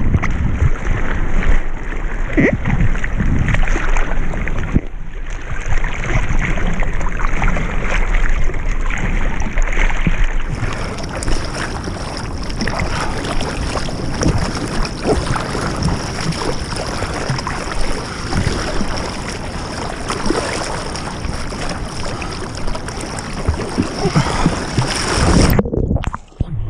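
Water rushing and splashing against a surfboard as it moves through the sea, with wind buffeting the action-camera microphone. Near the end the camera goes under the water and the sound briefly drops and goes dull.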